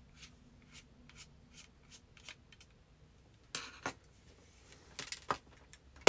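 Small screws being worked out of a Logitech gaming mouse's plastic housing and circuit board with a small screwdriver: faint, evenly spaced ticks about twice a second, then a few sharper clicks and knocks of the plastic parts being handled, a pair about halfway through and more near the end.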